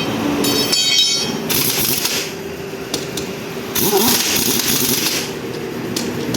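Machine noise: a steady running hum, a brief rattling burst about a second in, and two bursts of hissing.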